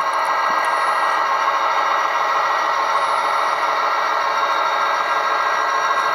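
Locomotive horn from the sound decoder of an HO-scale SDF40-2 model, a chord of several pitches held steadily through a small speaker.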